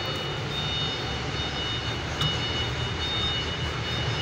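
Steady engine-like drone with a thin, steady high whine over it.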